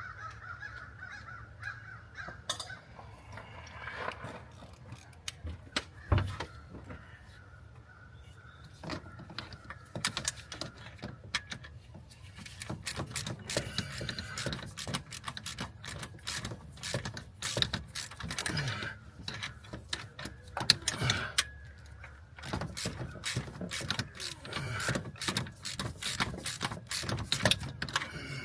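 Hand tools clicking, clinking and knocking against metal engine parts in irregular runs as an AC compressor is worked loose. The knocking is busier in the second half. A bird calls in the first few seconds.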